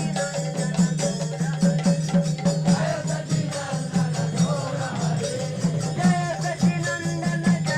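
Congregational kirtan: a group of voices chanting to a steady rhythm of kartal hand cymbals and mridanga drum.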